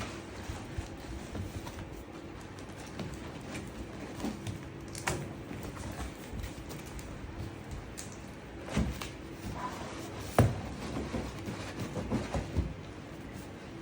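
Scattered knocks, clicks and rustles of objects being handled and set down, with a faint steady hum under them; the sharpest knock comes about ten seconds in.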